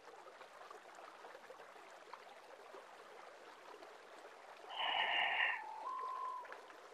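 A person breathing out audibly through the mouth, one breathy sigh about five seconds in, released as the arms lower during a seated breathing exercise. A faint steady tone follows near the end.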